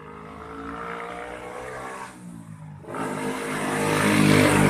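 A passing motor vehicle's engine accelerating with rising pitch. It dips briefly near the middle, then climbs again and is loudest near the end.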